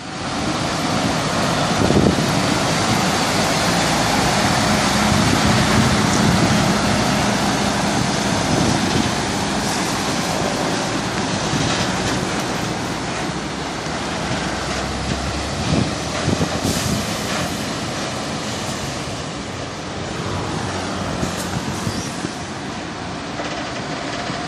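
MAN TGS 33.430 side-tipper truck's diesel engine running steadily as the rig drives slowly past, with the rumble of its trailer wheels rolling by. A low engine note is strongest in the first half and then eases off.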